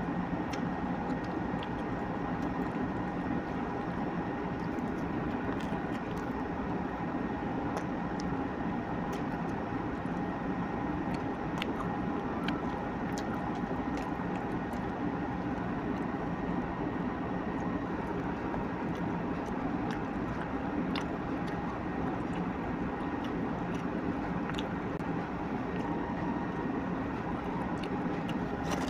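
A steady machine hum with two faint high steady tones running through it, like an appliance running in a small room. Scattered small clicks and ticks sit on top of it, fitting the handling and chewing of food close to a clip-on microphone.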